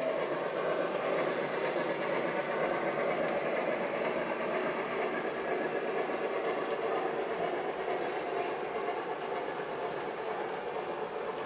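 Model railroad freight cars rolling steadily along the track, a continuous rolling noise with a few faint clicks from the wheels.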